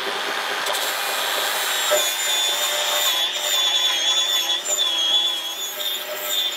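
Makita cordless angle grinder with a flap disc running and grinding the oxide coating off a piece of aluminium. Its high motor whine wavers in pitch as the disc is pressed into the metal.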